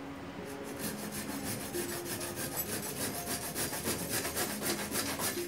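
Hand pruning saw cutting through a jabuticaba branch in quick, regular back-and-forth strokes, the rasping growing stronger after about a second.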